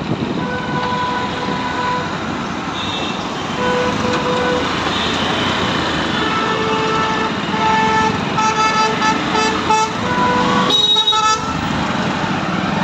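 Street traffic with several vehicle horns honking over a steady rumble of engines and road noise: repeated short toots between about six and ten seconds in, then one loud, blaring horn blast about eleven seconds in.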